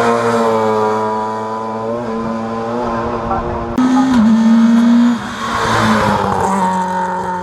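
Rally car engine at a hill climb, working hard. Its pitch sags and then rises again through the gear changes, with a sudden louder surge about four seconds in.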